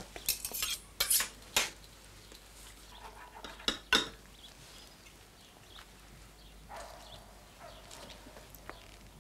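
Cutlery clinking and knocking against a dish, with several sharp clinks in the first four seconds, then quieter.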